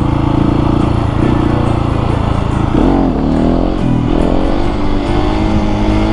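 Husqvarna 701 Supermoto's single-cylinder engine running under way at a steady pitch, then dipping and recovering twice, about three and four seconds in, as the throttle is rolled off and back on, before pulling on with a slowly rising pitch.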